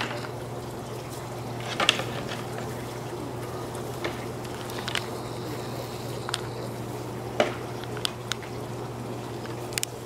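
Two bull elk sparring with antlers locked: scattered sharp clacks and knocks of antler on antler, a second or two apart, over a steady low hum.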